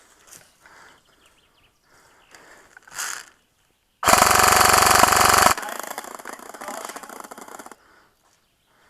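G&P M249 MKII airsoft electric gun firing a loud full-auto burst of about a second and a half, a fast even rattle, about four seconds in. A quieter rapid rattle of fire follows for about two more seconds.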